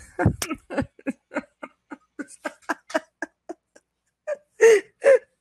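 A woman laughing hard in a run of short voiced bursts, several a second, that stop briefly and then come back louder near the end.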